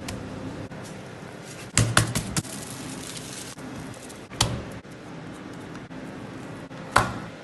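Raw minced meat and ingredients being handled and dropped onto a tray, giving a few sharp slaps: a cluster about two seconds in, another a little after four seconds, and one near the end, over steady background noise.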